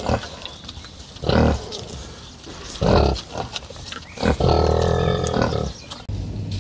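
Farmyard animal calls from a sow with piglets and a strutting white tom turkey: three short loud calls about a second and a half apart, then a longer call of just over a second starting about four seconds in.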